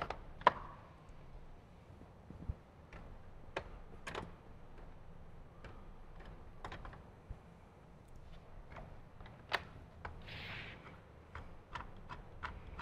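Scattered sharp clicks and light taps of a screwdriver and plastic fairing parts being handled as T27 bolts are driven in to mount a fresh-air vent. There is a short rustle about ten seconds in.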